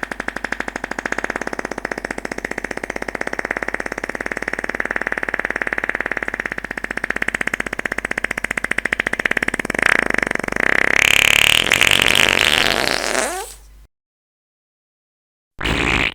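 A long fart sound effect: a fast, even fluttering rattle that grows louder and higher about ten seconds in, then cuts off suddenly. After a short pause a brief second fart starts near the end.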